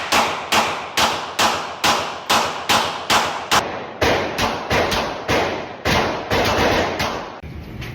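Rapid gunfire, about two shots a second, each sharp crack trailing off quickly. There is a break in the sound about a third of the way through, then more shots at a less even pace that stop shortly before the end.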